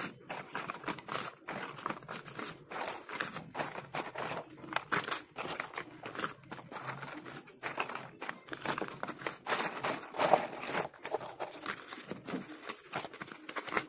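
Crumpled paper rupiah banknotes rustling and crinkling as hands pick through, gather and straighten them, in a run of irregular short crackles.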